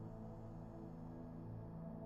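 Ambient meditation music: a drone of several low tones held steady, with no beat.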